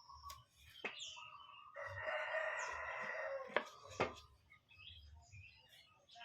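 A rooster crowing once, loudly, for under two seconds about two seconds in, with small birds chirping. A few sharp knocks or taps sound around it.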